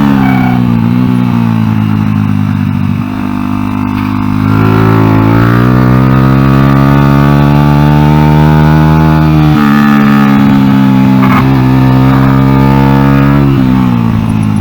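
Honda XR100 single-cylinder four-stroke engine in an NSF100 race bike running hard on track. It drops in revs in the first few seconds and then climbs and holds high. It drops suddenly about nine and a half seconds in, then falls away again near the end as the throttle comes off.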